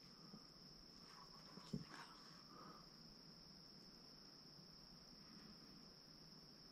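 Near silence: room tone with a faint, steady high-pitched whine, and a faint knock a little under two seconds in.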